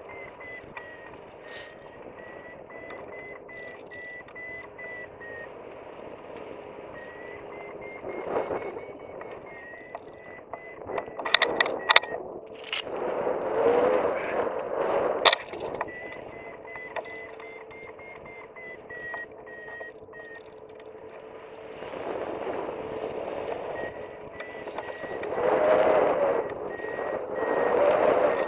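Hang glider's Flytec variometer beeping in quick pulses at a high pitch that drifts up and down, the climb tone that signals rising air. The beeping drops out twice for a couple of seconds. Wind rushes over the microphone and swells loudly several times, with a few sharp knocks near the middle.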